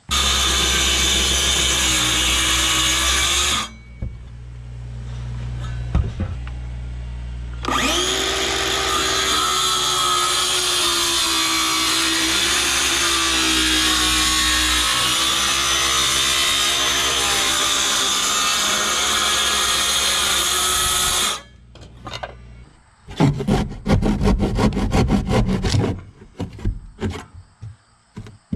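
Cordless circular saw cutting into wooden board siding, first briefly, then in one long cut of about fourteen seconds with a steady whine from the blade under load. Near the end, a handsaw rasps through the wood in quick, uneven strokes.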